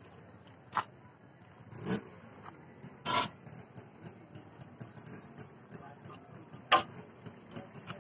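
Small engine of a homemade Sanedo mini tractor running with a low hum and a light ticking about three or four times a second from about halfway, with a few sharp knocks, the loudest near the end.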